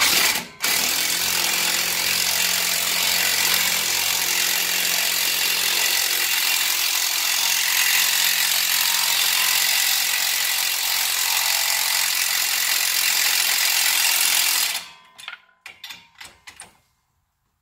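Corded electric impact wrench hammering continuously for about fifteen seconds, with a brief break just after it starts, running a lug nut down against a spacer nut to draw a new wheel stud into the front hub. It stops, then a few short bursts of the wrench follow.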